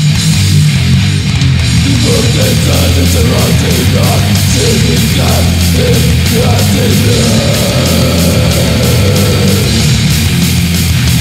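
Old-school death metal recording: heavily distorted low guitars and bass over fast, steady drumming, loud and dense throughout, with a wavering higher guitar or vocal line over the middle part.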